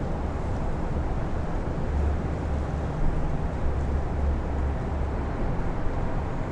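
Strong wind blowing steadily, with a low rumble that swells and drops every second or so as gusts buffet the microphones.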